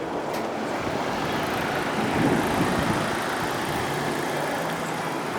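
Road traffic noise, a steady rush with a vehicle passing about two seconds in.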